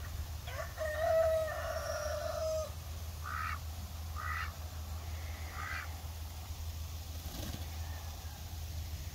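A rooster crowing once in one long call lasting about two seconds, followed by three short, higher calls about a second apart, over a steady low rumble.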